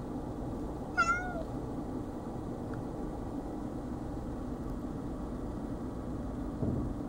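A cat meows once, briefly, about a second in, over the steady low hum inside a car.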